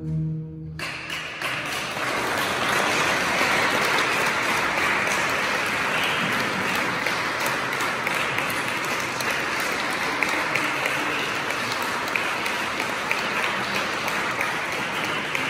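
The final pipe-organ chord stops less than a second in, and audience applause starts at once and continues steadily.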